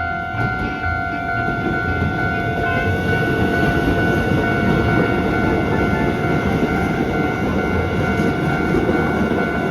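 Keisei 3500-series electric commuter train passing over a level crossing, its wheels rumbling on the rails, louder from about a second in until near the end. The crossing's warning bell keeps ringing steadily through the pass.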